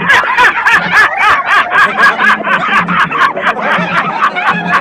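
High-pitched rapid laughter, an unbroken run of about five to six short 'ha' bursts a second, with a faint steady low tone beneath it.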